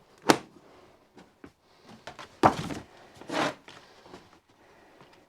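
Handling noises from a boxed tool kit: a sharp click near the start, then a heavier clunk about two and a half seconds in and a softer knock just under a second later.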